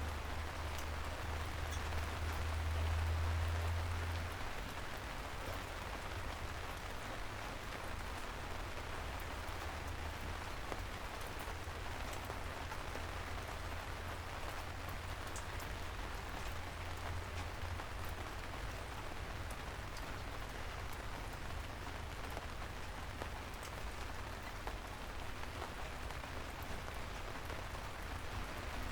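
Steady soft rain falling on a city street, an even hiss with scattered individual drop ticks. A low rumble underneath is stronger for the first four seconds or so, then eases.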